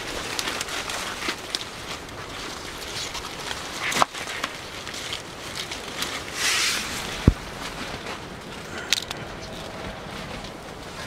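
Rustling and crackling of ito-bashō (fibre banana) stalk sheaths and dry leaves being handled and pulled apart, with a few sharp snaps, one louder rustle about six seconds in.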